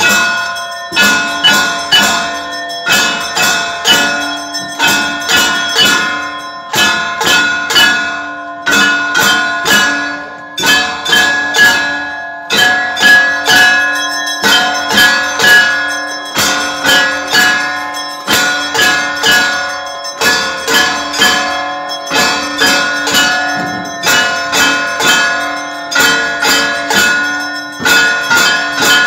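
Temple bells rung without pause: rapid, irregular strikes a few times a second, their ringing tones overlapping into a continuous clangour.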